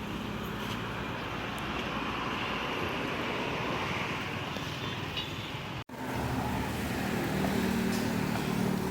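Steady street traffic noise from passing cars and motorbikes. About six seconds in the sound cuts out for an instant, then carries on with a low hum.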